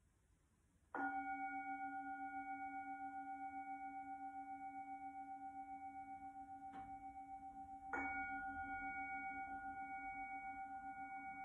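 Large Tibetan singing bowl struck twice with a mallet, about a second in and again some seven seconds later, each strike ringing on in a low steady tone with higher overtones above it and a slow, wavering throb.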